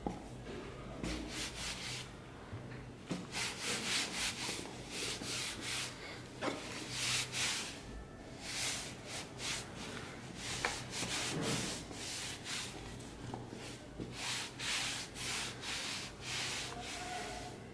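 A cloth rubbed against the surface of a cardboard box in repeated brushing strokes, coming in bunches with short pauses between them.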